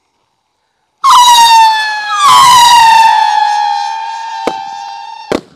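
Two Roaring Tiger whistling firework rockets launching one after the other, each with a loud, shrill whistle that falls slightly in pitch. The first starts about a second in and the second about a second later. Near the end come two sharp cracks, the second louder, as the rockets burst.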